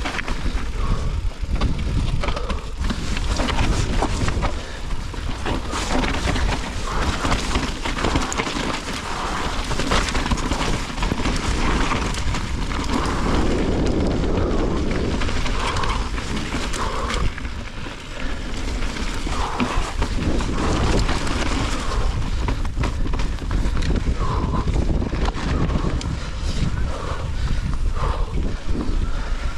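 Mountain bike ridden down a rocky dirt trail: a steady rush of wind on an action camera's microphone, with the bike rattling and knocking over bumps and rocks and the tyres running over dirt.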